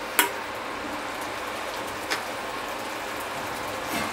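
Watery tomato gravy simmering in a steel kadhai: a steady, even sizzling hiss. A metal spoon knocks once against the pan about a quarter-second in, with a fainter tap around two seconds.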